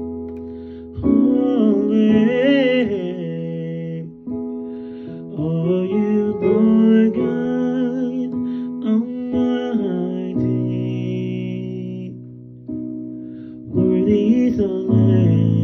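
A man singing in long, wavering, sliding phrases over sustained accompaniment chords that change every few seconds. The voice drops out for a few seconds past the middle while the chords ring on, then returns near the end.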